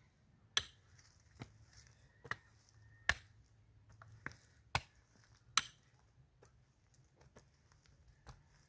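A series of sharp knocks at uneven spacing, roughly one a second.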